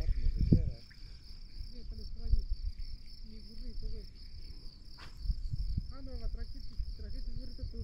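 Insects trilling steadily at a high pitch, with low rumbling noise on the microphone, loudest in the first second, and faint voices in the background.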